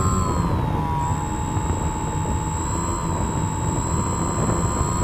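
RC airplane's motor whining in flight, heard from a camera mounted on the plane, its pitch dipping slightly about a second in and then holding fairly steady. Heavy wind rush on the camera runs underneath.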